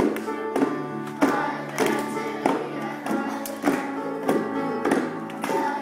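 Children's group music: small hand drums (djembes and bongos) struck on a steady beat, about one and a half strokes a second, over a pitched instrumental accompaniment with voices singing along.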